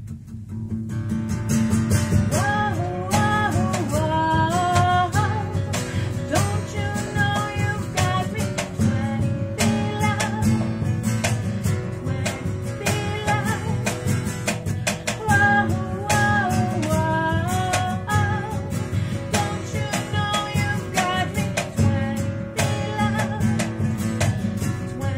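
Live acoustic music: two acoustic guitars strummed and picked together, with a woman singing over them. The music dips briefly at the start, and the voice comes in about two seconds in.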